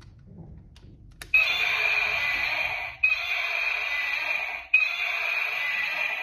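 LED dinosaur toy sword's built-in sound effect playing: a click about a second in, then three loud, noisy bursts of under two seconds each, back to back, each starting abruptly.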